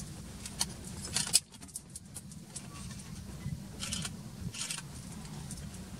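Low steady rumble of an idling safari vehicle's engine, with a few short rattles and clicks near the start and again about four seconds in.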